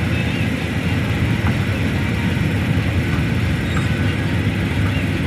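Heavy diesel engine of a SANY excavator running steadily at work.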